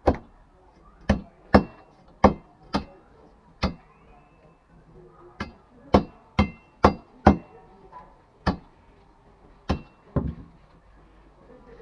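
A hand-held wooden block striking fish on a wooden cutting board at a boti blade: a run of sharp knocks, one or two a second, with a pause about four seconds in. Several knocks leave a brief ring.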